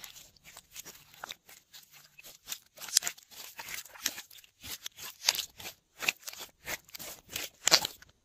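Glossy slime being stretched and squeezed by hand: a run of irregular sticky crackles and pops, louder in the second half.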